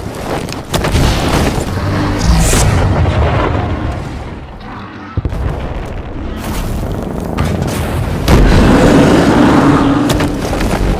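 Loud, layered monster-fight sound effects: heavy booms and crashing impacts over a deep rumble, several sharp hits, and a louder sustained section from about eight seconds in.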